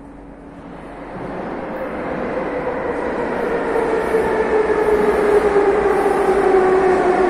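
Metro train approaching the platform, its rumble growing steadily louder, with a motor whine that slides down in pitch as the train slows.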